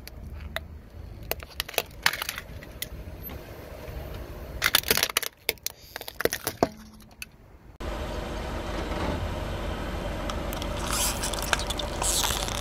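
Objects cracking and snapping under a car tyre as it rolls over them: scattered sharp cracks, with a dense cluster about five to six and a half seconds in. Near eight seconds the sound cuts abruptly to a steady noise bed, with a burst of crackling near the end.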